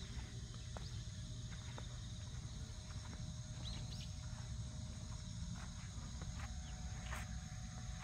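Outdoor ambience of insects trilling steadily at a high pitch, with scattered short chirps and a constant low rumble beneath.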